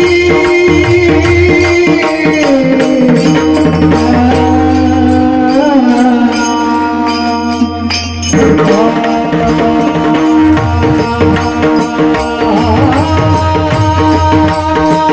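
Marathi devotional singing: a voice holding long alap notes that glide slowly between pitches, over a steady accompaniment with an even percussion beat. The voice breaks off briefly about eight seconds in, then takes up the next phrase.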